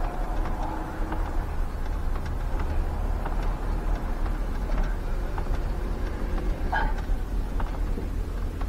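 Steady low hum of an idling engine heard inside a truck cab, with faint knocks and a short squeak about seven seconds in.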